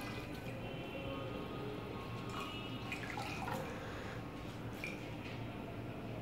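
Water dripping and trickling into a glass bowl as a wet cloth is lifted out of it and squeezed, with a few small splashes.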